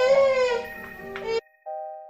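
Background music with a high, wailing cry-like voice over it that cuts off abruptly about one and a half seconds in, followed by soft electric piano notes.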